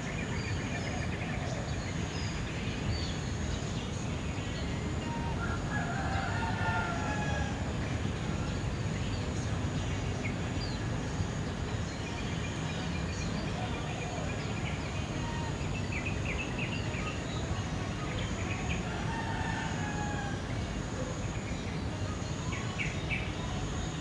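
Several birds calling and chirping in short, scattered phrases over a steady low background rumble, with a thin, steady high-pitched drone.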